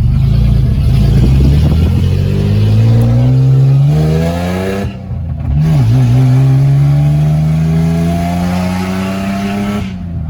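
Straight-piped Nissan 300ZX V6 accelerating hard, the revs climbing through a gear, a quick upshift about five seconds in, then climbing again until another shift near the end.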